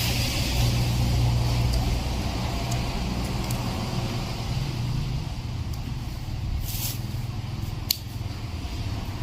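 Steady low rumble of road traffic, with a few short crackles and a sharp click near the end.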